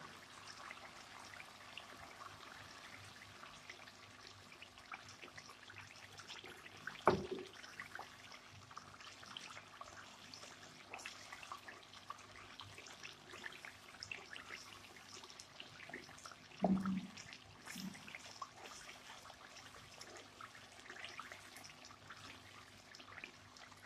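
Thick masala of blended onion, tomato and yogurt frying in a nonstick wok: a faint bubbling with light sputtering crackles as it is stirred with a wooden spoon, cooking down until the water from the yogurt and tomato dries out. Two louder knocks, about seven seconds in and again about two-thirds of the way through.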